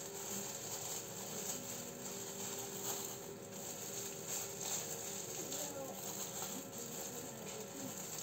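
Soft rustling and patting of plastic-gloved hands spreading sticky sushi rice onto a nori sheet on a bamboo mat, over a steady low hum and faint voices in the background.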